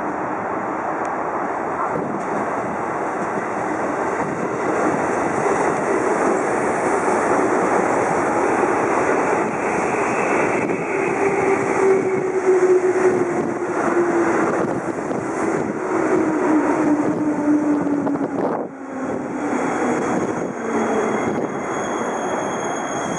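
JR East 205 series electric train pulling into the platform: wheels and motors run with a steady rumble, and a tone falls slowly in pitch through the second half as the train slows. A brief drop in the noise comes about two thirds of the way in, followed by a thin high squeal to the end.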